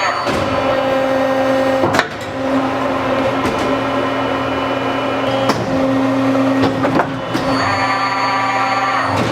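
Horn Metric 80TMRE-RBE hybrid CNC tube bender running, a steady motor whine with several held tones that step slightly in pitch, broken by four sharp clunks from the machine's moving tooling.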